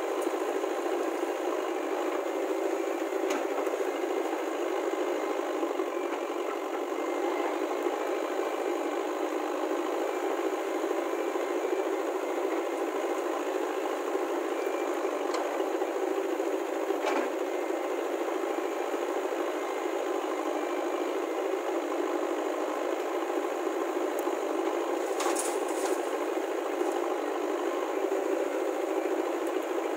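Diesel engines running steadily as a JCB 3DX backhoe loader digs and swings mud into a tractor trolley, with a rattle and a few short knocks, one near the middle and one later on.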